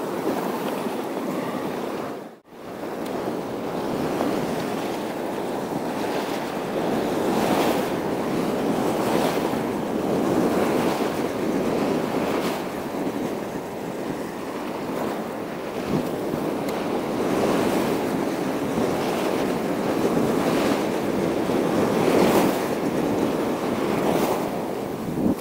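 Sea waves washing against a rocky shore in an unbroken wash that swells and eases every second or two. The sound drops out almost completely for a moment about two seconds in.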